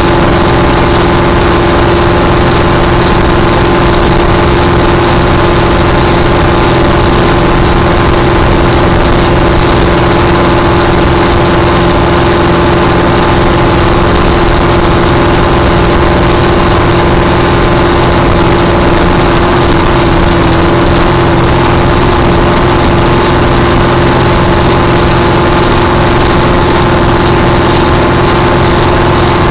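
Supercharged Ford engine of a blown flat-bottom boat running steadily underway at constant revs, a loud, even drone with no rise or fall in pitch.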